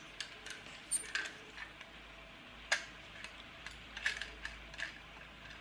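Light, irregular clicks and taps from a small clockwork toy car chassis being handled and turned over in the fingers.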